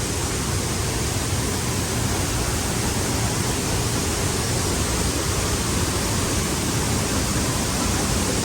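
Dry Falls, a waterfall on the Cullasaja River, pouring in a steady, even rush of falling water, running high and loud after days of storms.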